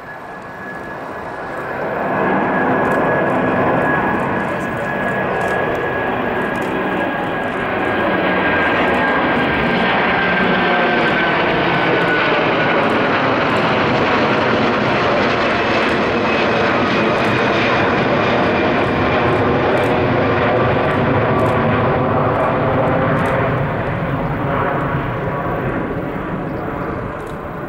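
Airbus A330-243F freighter's Rolls-Royce Trent 700 jet engines at climb power as it climbs away after takeoff, a loud roar that builds as the jet comes overhead. A high whine slowly falls in pitch as it passes, and the roar eases near the end as it flies off.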